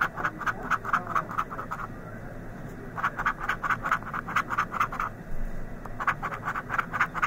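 A coin scraping the coating off a scratch-off lottery ticket in quick back-and-forth strokes, about five or six a second. It comes in three spells, with short pauses after about two seconds and again after about five.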